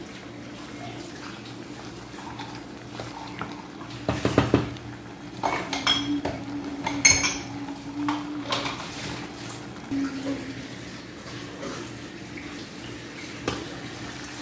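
Metal clanking and clinking on an aluminium cooking pot: a cluster of knocks between about four and nine seconds in, then single knocks at about ten seconds and near the end, over a low steady hum.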